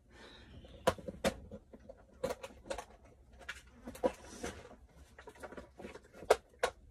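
Irregular clicks and knocks of small hard makeup items being handled and set down, as in rummaging through a makeup collection.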